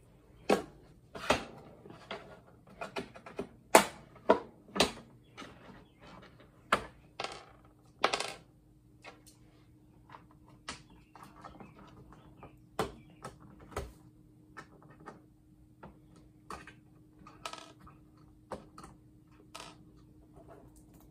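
Irregular sharp clicks and knocks of tools, screws and hard plastic being handled as a monitor is taken apart, louder and busier in the first half. A faint steady hum comes in about eight seconds in.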